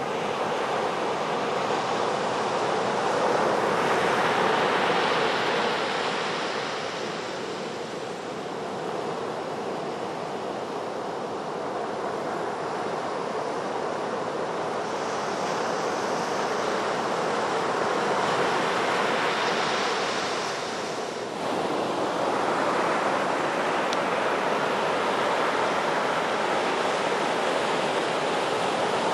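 Ocean surf breaking and washing up a sandy beach, the rush of water swelling and easing as the waves come in.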